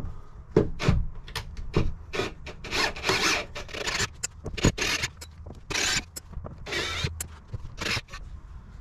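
Hands and tools working at a van's window frame: sharp clicks and taps and several short scraping, rubbing bursts, as the frame's screws are being removed.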